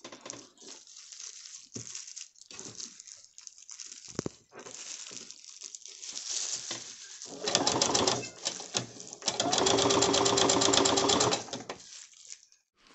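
Domestic electric sewing machine stitching binding onto a thick felt panel: a short run near the middle, then a longer steady run of rapid, even stitches about two seconds long near the end. Faint rustles and clicks of the fabric being positioned come before.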